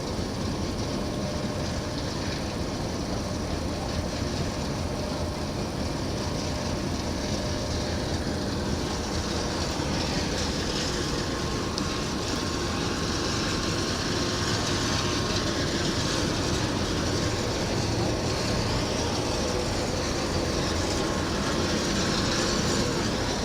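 A vessel under way: a steady mechanical rumble under a rushing hiss of wind and water, growing a little louder about halfway through.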